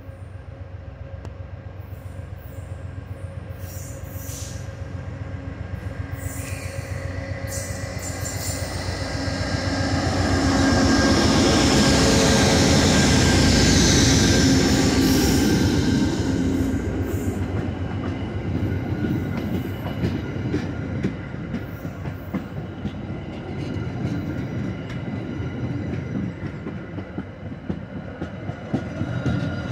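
Diesel-hauled passenger train approaching and passing at speed: the locomotive's engine and rumble build to a peak in the middle, then the coaches roll by with their wheels clacking over the rails.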